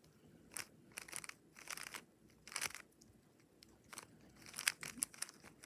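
GAN 3x3 speed cube's plastic layers being twisted by hand: an irregular run of quick clicks and clacks, several turns a second in bursts.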